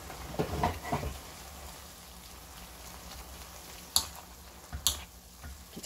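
Siraegi (dried radish greens) with anchovies simmering in a shallow rice-water broth in a pan, a steady sizzling hiss, while a spatula stirs and scrapes through it, with two sharp knocks of the spatula on the pan near the end.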